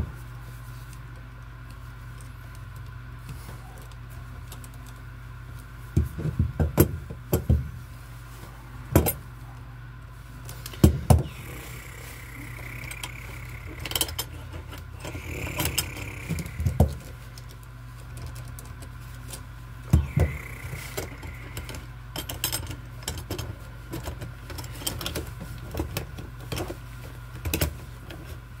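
Scattered metallic clicks, knocks and rattles as copper wires and tools are handled in and around a metal junction box, in clusters with pauses between, over a steady low hum.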